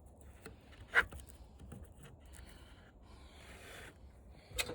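Hands handling parts and tools of a dismantled TV: a sharp click about a second in, short stretches of soft scraping and rubbing, and another click near the end.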